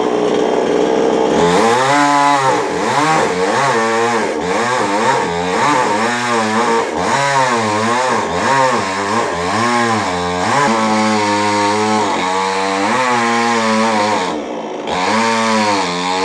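Two-stroke chainsaw running through a coconut trunk, its engine pitch repeatedly rising and falling as it is throttled and slows under the cut. The engine eases off briefly near the end, then picks up again.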